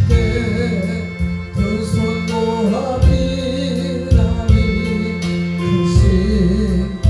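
A solo voice singing a slow Christian gospel hymn with vibrato over sustained instrumental accompaniment.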